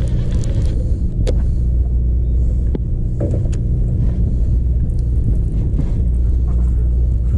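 Sport fishing boat's engine running with a steady low rumble, a few sharp clicks and knocks on deck over it.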